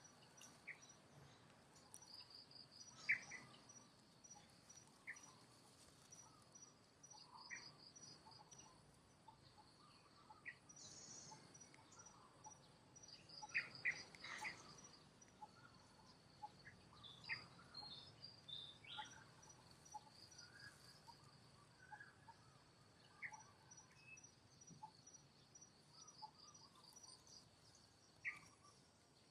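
Faint outdoor ambience of insects trilling, in repeated rows of short, even, high-pitched pulses, with scattered brief chirps and a few soft clicks.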